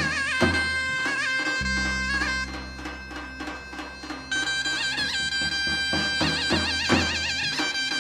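Instrumental introduction of a Turkish folk song played live: a reed wind instrument carries an ornamented melody over a low sustained bass with light percussion. The wind melody drops out for a couple of seconds around the middle, then comes back in.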